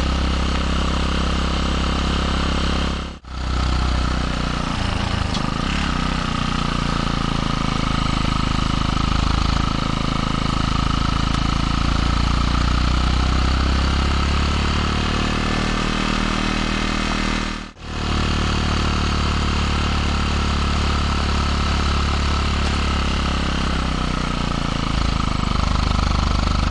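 Kawasaki Eliminator 125's single-cylinder four-stroke exhaust, picked up by a microphone just behind the muffler outlet, running steadily under way with wind noise. The sound cuts out briefly twice.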